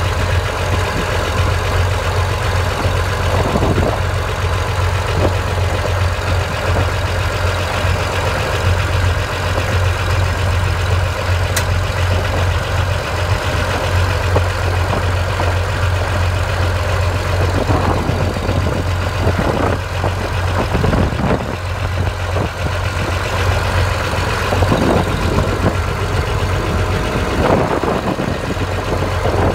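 Diesel engine of a yellow earthmover running steadily close by: a deep, even hum with no change in speed.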